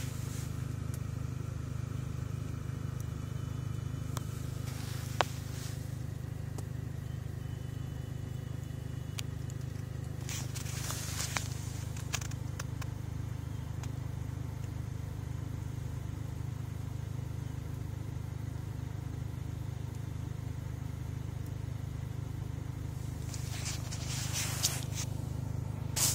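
Plastic and cardboard retail packaging of a GoPro camera being handled: a sharp click, then two spells of scraping and rustling, over a steady low rumble.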